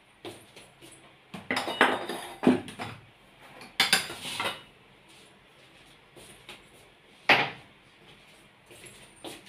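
Metal kitchen pots, bowls and utensils clattering as they are handled and set down, in a few bursts: a cluster of knocks about one and a half to three seconds in, another about four seconds in, and a single sharp clank past seven seconds.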